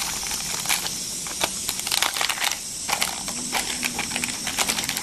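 Plastic seasoning sachets crinkling and clicking as their powder and dried seaweed flakes are shaken and squeezed into a pot of water, over a steady high hiss from the flameless heating pack reacting with water beneath the pot.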